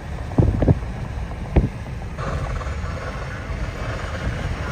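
Storm wind buffeting the microphone as a steady low rumble, with three low thumps in the first two seconds.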